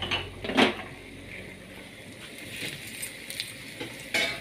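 A metal spoon clinking and scraping against a stainless steel pan as chopped vegetables are stirred, with a few sharp clinks, the loudest about half a second in and again near the end.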